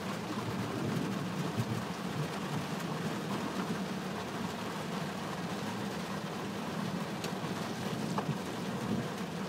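Rain falling on a car's windshield and roof, heard from inside the car, over a steady low rumble. A windshield wiper sweeps across the glass near the end, with a faint click or two.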